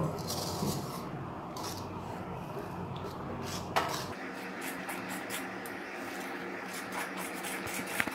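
A metal spoon stirring thick Mysore pak batter around an aluminium kadai: a steady rubbing scrape against the pan, with a few light clicks of the spoon on the metal.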